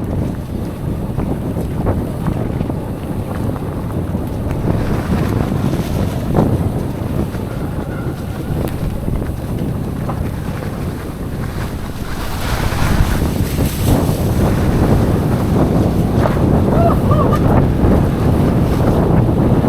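Wind buffeting the microphone of a rider's camera while mountain biking down a trail, a steady low rumble that grows louder about two-thirds of the way through as the speed picks up.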